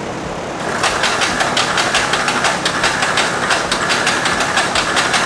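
An engine running, with a fast, rhythmic clicking clatter of about five or six strokes a second that comes in about a second in.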